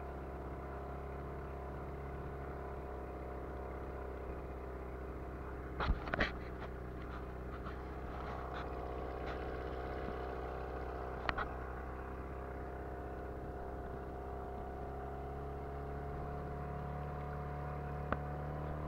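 Boat's outboard motor running steadily at cruising speed, with a couple of short knocks about six and eleven seconds in.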